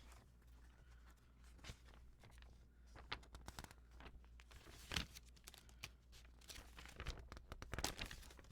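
Faint rustling, crinkling and light clicks as a plastic model kit's box and packaging are handled.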